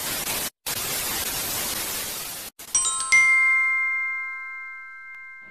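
Television static hiss for about two and a half seconds, cutting out briefly about half a second in. A bright chime then strikes twice and rings on, slowly fading.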